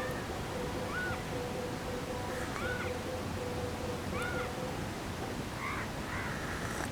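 Short animal calls, each rising and then falling in pitch, about five of them a second or two apart, over a steady hiss.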